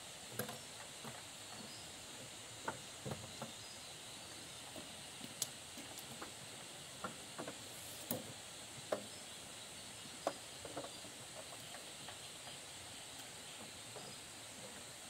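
Scattered light clicks and knocks as a box and a rubber tie-down cord are handled on a motorbike's rear rack, over a steady faint high buzz of insects.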